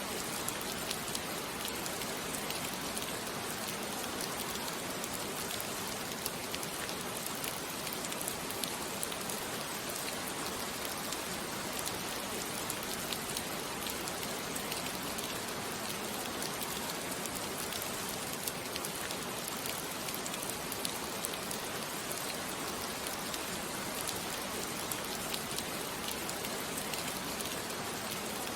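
Steady rain falling, a dense even hiss dotted with many small drop ticks.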